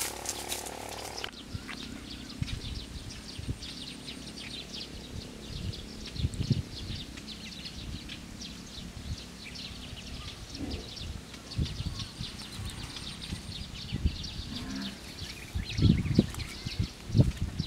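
Outdoor chorus of small animal calls: a dense, continuous chatter of short high chirps and clicks, with a faint, high pulsed trill twice. Low thumps come and go underneath, heavier near the end.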